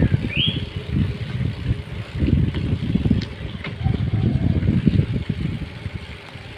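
Road travel with wind buffeting the microphone as gusty low rumble, over traffic noise. A short rising squeak comes about half a second in.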